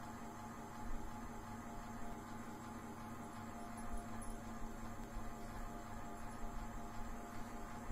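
Steady electrical hum over a background hiss, with a faint knock about a second in.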